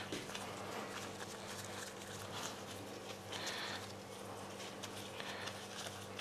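Faint soft squishing and patting of a ball of wheat-flour noodle dough being kneaded and folded between gloved hands, over a low steady hum.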